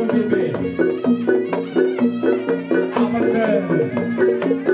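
Traditional music played live: pitched struck notes repeat in a fast, steady rhythm, and deep drum strokes drop in pitch about half a second in and again past three seconds.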